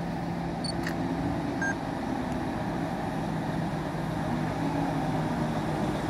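Heavy lorry diesel engines running: a steady, low engine hum that slowly grows louder as a truck approaches at low speed.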